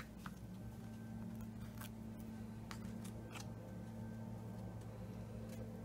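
A few faint clicks and taps from handling a glued card-stock panel and setting down a plastic liquid-glue bottle, over a steady low hum.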